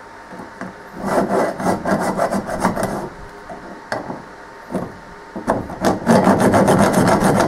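Hand file rasping across a rough metal casting, the lathe foot, in runs of quick strokes: a short run about a second in, a few single strokes, then a longer, faster run in the second half.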